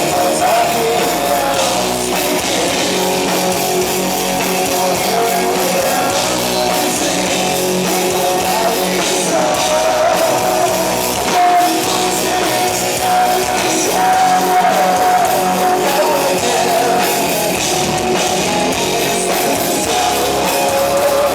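Rock band music: distorted electric guitars and a drum kit playing a passage without clear sung words, with a held melody line over the top.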